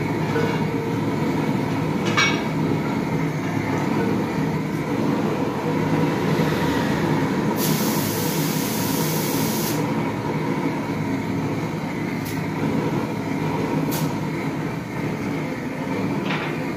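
Long-handled LPG torch burning steadily with a continuous roar as its flame heats a dented alloy wheel rim to soften it for straightening. A brief burst of high hiss comes about eight seconds in, and a few light clicks are heard.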